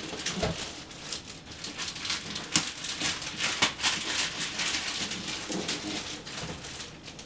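Christmas wrapping paper being torn and crinkled by hand as a gift box is unwrapped, a dense, irregular run of crackles and rips.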